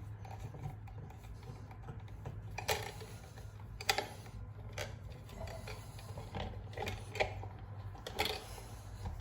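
Handling of stiff electrical wires and tools at a wall box: scattered short clicks, taps and rubs as the wires are bent and pushed into place, over a steady low hum.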